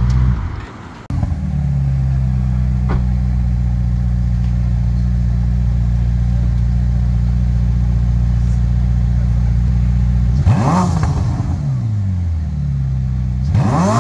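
Ferrari SF90 XX's twin-turbo V8 idling steadily, then blipped twice near the end, each a quick rev up and back down, about three seconds apart. The sound drops away briefly about half a second in.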